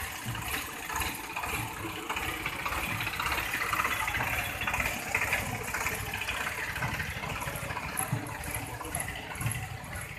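Tractor diesel engine running steadily at low revs.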